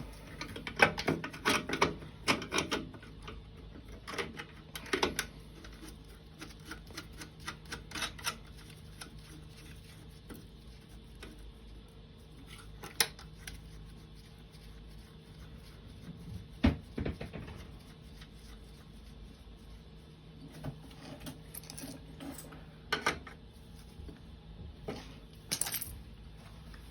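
Irregular metal clicks, clinks and knocks of tools and oil-burner parts being handled and refitted while the burner's nozzle assembly is put back together, with a few sharper knocks. A faint steady low hum runs underneath.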